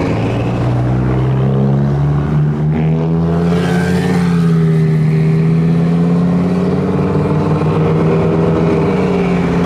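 Lamborghini Huracán's V10 engine with an aftermarket exhaust, driven slowly at low revs: a steady, deep exhaust drone whose pitch wavers gently up and down.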